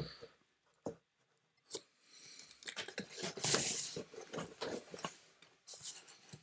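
Cans being handled and taken out of a cardboard box: two light knocks, then a few seconds of cardboard scraping and rustling.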